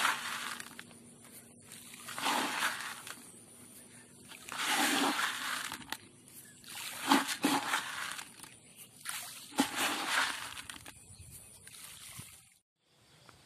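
Granular fertilizer broadcast by hand over a flooded rice paddy, the pellets spattering across the rice leaves and water in a burst about every two to three seconds, one throw after another.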